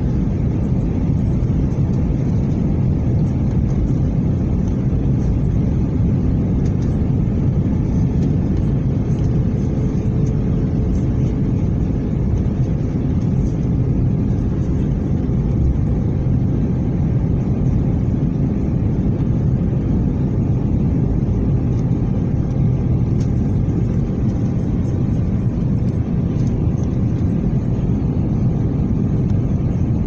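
Airliner cabin noise in flight: a steady, dense low rumble of the engines and airflow heard from inside the cabin.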